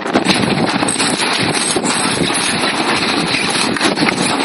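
Strong wind blowing over the microphone, a loud, steady rushing noise with no speech.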